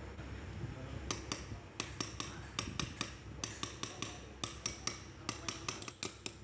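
Hammer tapping on the pulley of a car air-conditioning compressor's magnetic clutch, around its newly fitted pulley bearing: a run of sharp metallic taps, about four a second, starting about a second in and stopping just before the end.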